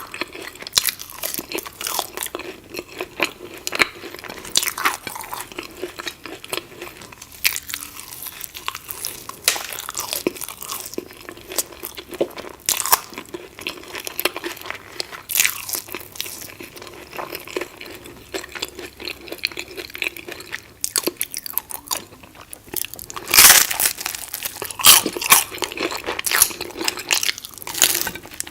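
Close-up biting and chewing of crunchy food, with many irregular crisp crunches; the loudest bites come about 23 to 25 seconds in.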